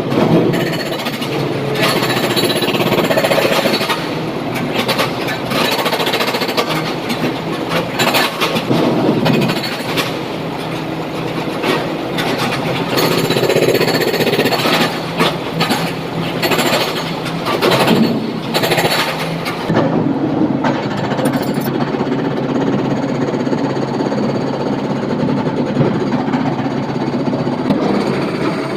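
SANY excavator at work: its diesel engine runs steadily under a rapid, uneven clatter of knocks and bangs.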